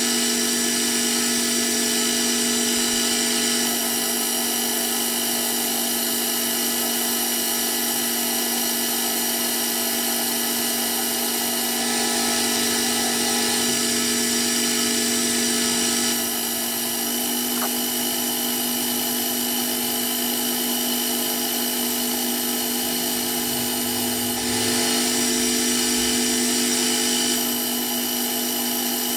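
Metal lathe running under power, turning a metal bar: a steady motor and gearing whine with a cutting hiss. The level shifts slightly a few times.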